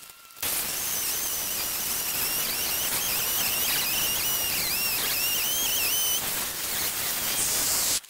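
Chainsaw cutting into a tree trunk. Its whine dips and recovers several times as the chain loads in the cut, making the top cut of a felling notch.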